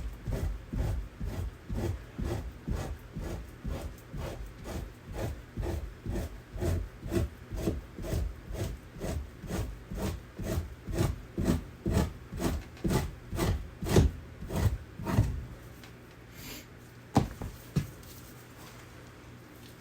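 Knife scraping an otter hide in quick, even strokes, about two a second, rasping against the skin. The strokes stop about three-quarters of the way through, followed by two sharp knocks.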